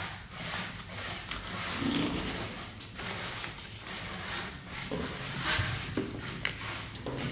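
Plastic tile-leveling clips and wedges clicking and scraping as they are handled and pushed into place at the seams of porcelain floor tiles, in irregular clicks, over a low steady hum.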